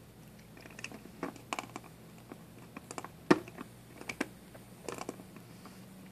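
A cat chewing and biting on the bristled gum-massager post of a cat massager toy: irregular soft clicks and ticks of teeth on the post, the loudest about three seconds in.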